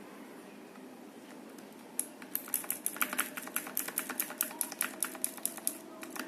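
Typing on a Magicforce 68 mechanical keyboard with clicky blue switches and round typewriter-style keycaps: a quick run of sharp key clicks starts about two seconds in, roughly eight a second, with one last click near the end.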